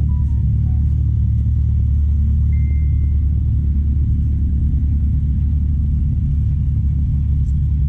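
Steady low rumble of car engines idling, unbroken throughout. A brief high tone sounds about two and a half seconds in.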